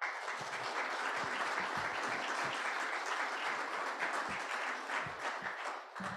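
Audience applauding: dense clapping that breaks out at once and thins out near the end.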